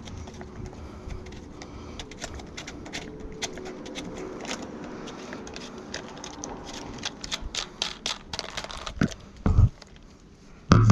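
Irregular clicking and rattling of plastic and metal parts as a discarded electric fan is worked apart by hand, with two heavy thumps near the end.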